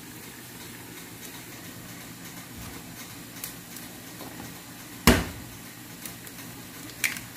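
An egg cracked open with one sharp knock about five seconds in, with a few fainter taps around it, over a steady low background hum.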